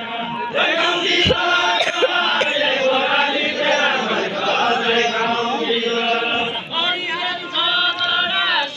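A group of voices chanting a Deuda folk song together, the melody moving in long held and sliding notes without a break.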